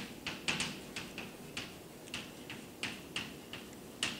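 Chalk tapping and scratching on a blackboard while writing: a quick, irregular series of sharp clicks, about three a second.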